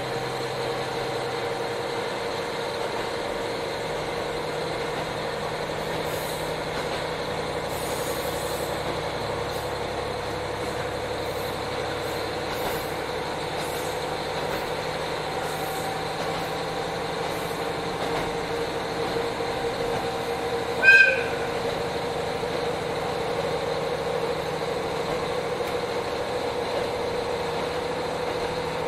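JR Hokkaido KiHa 40 diesel railcar running, heard from inside the car: a steady diesel engine drone with wheel and rail noise at an even speed. About three-quarters of the way through, a brief loud high-pitched tone sounds once.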